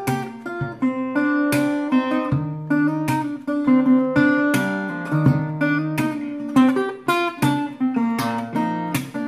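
Small-bodied steel-string acoustic guitar played fingerstyle: a picked melody over a moving bass line, with sharp accented strokes falling on a steady beat.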